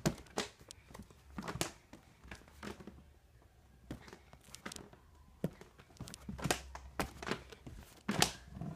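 Scattered rustles, clicks and soft knocks of things being handled close to the microphone, quieter about three seconds in and busier near the end.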